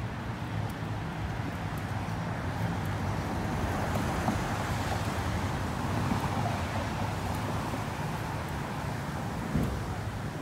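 City street traffic on wet pavement: tyre hiss from a passing vehicle that swells to a peak around the middle and fades, over a steady low rumble of traffic.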